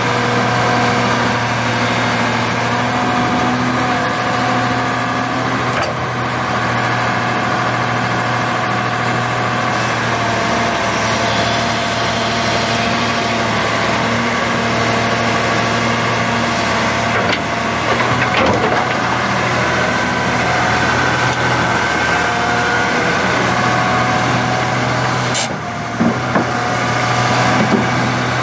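1997 Komatsu PC300LC-6LC excavator's 8.3-litre six-cylinder turbo diesel engine running steadily, with a couple of short knocks, one about two-thirds through and one near the end.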